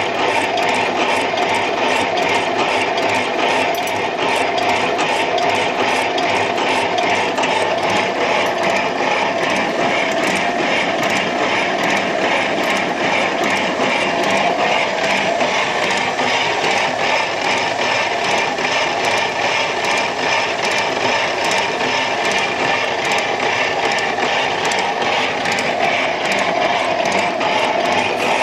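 Varnamo metal shaper running, its ram stroking back and forth as the toolholder takes a cut on a steel block. It makes a steady mechanical clatter with regular clicks.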